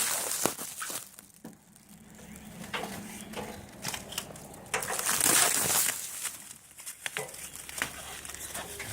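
Packaging wrapped around a new tool chest being cut and pulled away, crinkling and tearing in bursts, loudest at the start and again about five seconds in.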